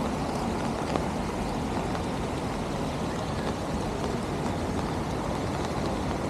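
Steady city street noise: a continuous hiss with a few faint ticks.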